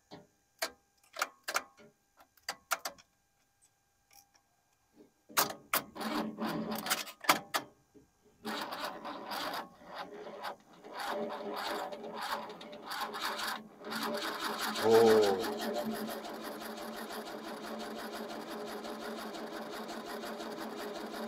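1976 Holden HX ute's starter motor cranking the engine without it firing: a few clicks and short turns first, then long runs of cranking that start slow and get faster, which is not meant to happen. The engine has spark and fuel but does not catch; the owner suspects the ignition timing. A brief loud voice-like cry about fifteen seconds in.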